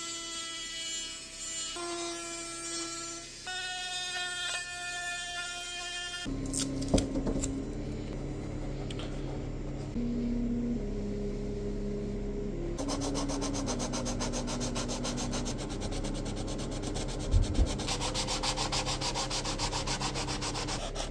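Dremel rotary tool whining as it grinds the ends of wooden lifting strakes on a model boat hull, its pitch stepping up and down twice. After about six seconds a sanding block rubs back and forth on the wooden strakes in quick, even strokes.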